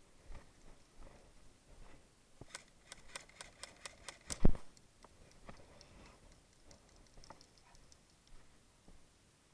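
Airsoft gun firing a quick string of sharp clicking shots, about five a second, ending in one loud thump; fainter scattered clicks follow.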